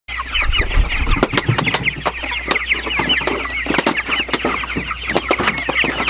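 A flock of five-week-old Cornish cross meat chickens calling together: many overlapping high peeps and clucks, with frequent short clicks among them.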